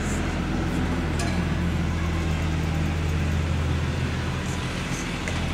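Air-cooled two-stroke kart engine idling steadily with a low, even hum.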